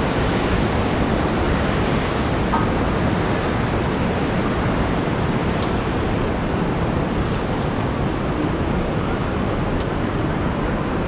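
The fast-flowing Mandakini river rushing over rocks below the bridge: a steady, even roar of water, with a few faint clicks.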